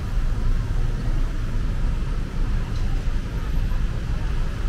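Busy city street ambience: a steady low rumble of road traffic.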